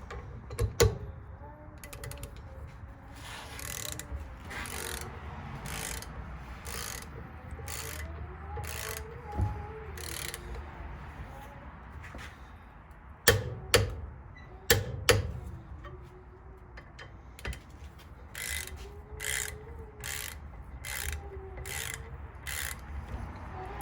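Ratcheting torque wrench tightening the nipple-cup nuts on a 6.0 Powerstroke's high-pressure oil rail, in a run of short ratcheting strokes. About halfway through come two pairs of sharp loud clicks, the wrench clicking over at its set 100 foot-pounds.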